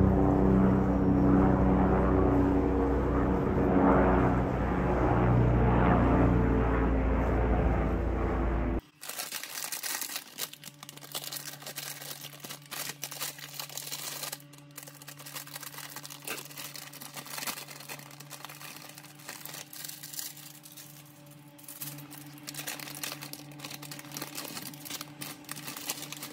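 Background music for about the first nine seconds, then it cuts off. After that come the crinkling of plastic instant-noodle packets being cut open with kitchen scissors, torn and emptied, over a steady low hum.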